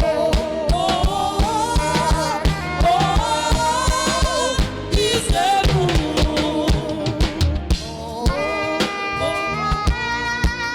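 Upbeat gospel worship music: a voice singing a wavering melody over a driving drum kit and held instrument chords.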